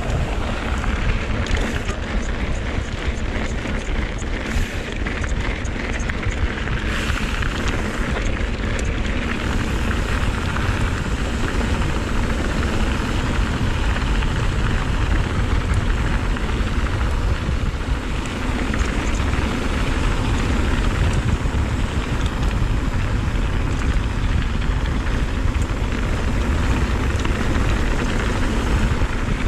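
Steady wind rush over the microphone with rolling tyre noise from a mountain bike riding fast down a dirt trail, heaviest in the low rumble.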